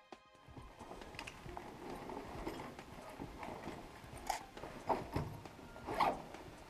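Handling noise from a person fiddling with something on their lap: continuous rustling with a few louder, zip-like scraping strokes about four to six seconds in.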